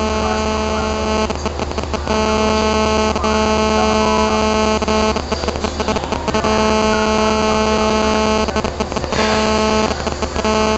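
Loud steady electric buzz at one pitch with many overtones and a low hum beneath, breaking off briefly three or four times.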